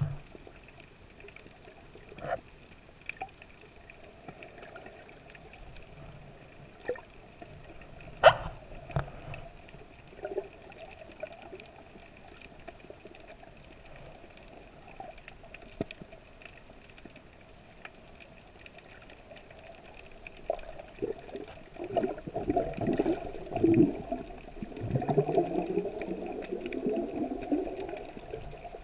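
Underwater ambience picked up by a camera held below the surface: faint water sounds with a steady hum and scattered sharp clicks and knocks. Louder gurgling and sloshing of water against the camera begins about two-thirds of the way in.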